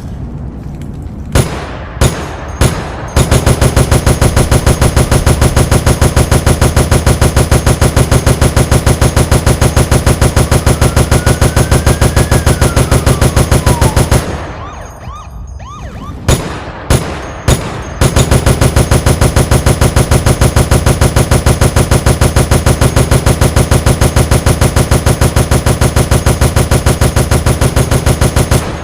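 M60 machine gun firing: three single shots, then a long continuous burst of about eleven seconds. After a gap of about two seconds come three more single shots and a second long burst of about eleven seconds that cuts off sharply near the end.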